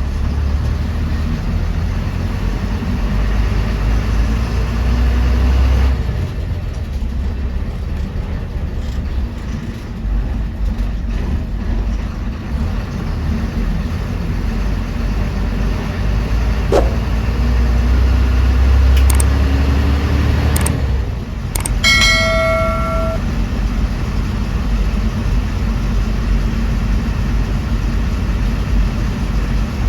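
Bus engine and road noise rumbling steadily from inside a moving bus, with the engine pitch rising slowly twice as it gathers speed. About two-thirds of the way through, a horn sounds once in a short, steady honk.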